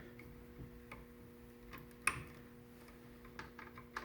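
Scattered light clicks and ticks of hands working with plastic parts and power cables inside a PC case, with one sharper click about two seconds in and a few more near the end, over a faint steady hum.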